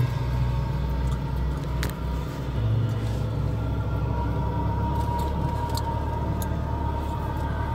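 Steady low rumble of a car rolling slowly over tilled field ground, heard from inside its cabin, with a few light knocks and rattles.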